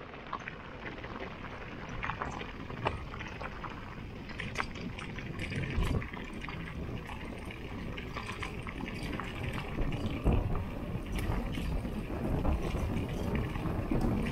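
Mountain bike rolling fast downhill over rough trail: a rushing tyre-and-air noise, with many small rattles and knocks from the bike over bumps, growing louder as it gathers speed.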